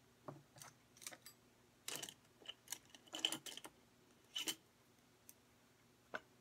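Irregular light clicks and taps of small hard objects being handled, about a dozen, busiest a little past the middle.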